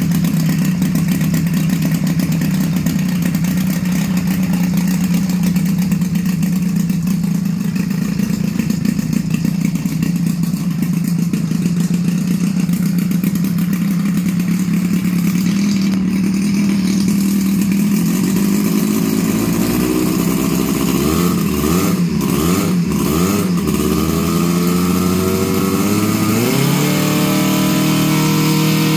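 DLE 222 four-cylinder two-stroke petrol engine on a giant-scale RC F8F Bearcat, turning a large propeller and running smoothly at idle while it is being broken in. About twenty seconds in the throttle is blipped up and down several times. Then it opens up to a higher, steady rpm near the end.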